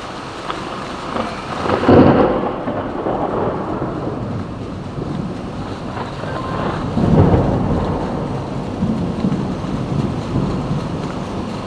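Heavy rain falling steadily through a thunderstorm, with two peals of rolling thunder: the louder about two seconds in, the second about seven seconds in, each rumbling on for several seconds.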